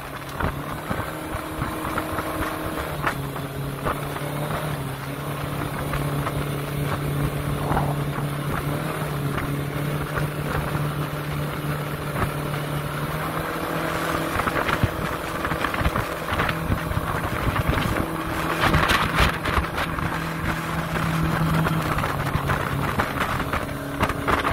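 Yamaha 200 outboard jet drive running at wide-open throttle, a steady engine drone with wind and water rushing past the hull. The engine note shifts slightly in pitch a few times, and the rush of wind and water gets louder in the later part.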